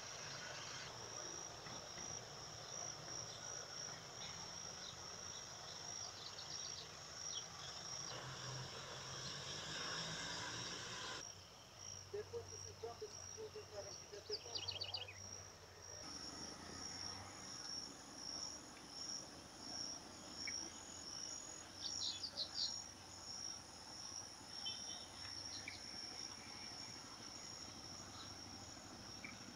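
Insects chirping in a high, evenly pulsing rhythm, with a second, higher steady buzz joining a little past halfway and a few short chirps now and then.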